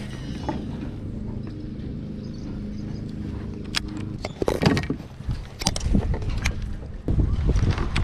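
A kayak's electric trolling motor humming steadily for about four seconds, then stopping. Several sharp clicks and knocks follow as a baitcasting rod and reel are handled, with a louder low rumble from about seven seconds in.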